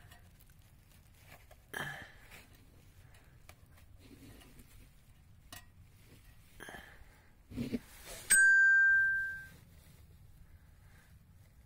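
A few faint clicks and rustles, then a sudden loud bell-like ding that rings for about a second and fades away.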